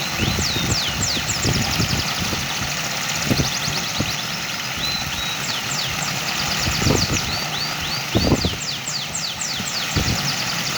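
Running water and wind, with gusts rumbling on the microphone, while small birds chirp in rapid series of quick falling notes and short trills.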